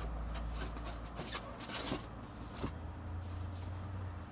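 A few short rubs and knocks as a new monitor is handled and laid flat on its styrofoam packing, over a low steady hum.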